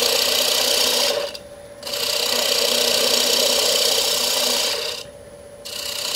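A gouge cutting the outside of a wooden bowl spinning on a wood lathe, a steady shearing hiss of shavings coming off. The cut stops twice for under a second as the tool comes off the wood.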